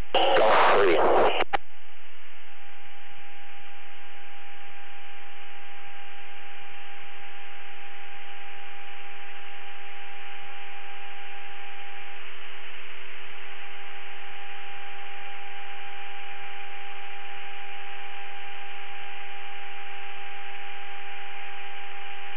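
Steady electrical hum and hiss on a cockpit intercom recording, a low pitched hum with a fainter overtone above it, after a brief burst of radio speech at the start.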